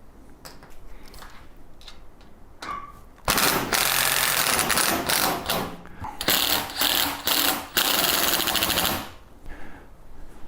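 Power driver running in several bursts over about six seconds, tightening fasteners during the tumbler's assembly, with a rapid hammering pulse; light clicks of parts being handled come before it.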